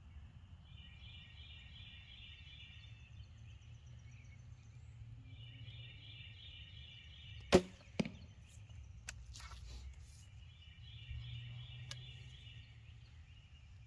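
A longbow shooting a wooden arrow: a sharp snap of the string about seven and a half seconds in, then, under half a second later, a duller knock as the arrow strikes the 3D deer target. A bird trills repeatedly in the background.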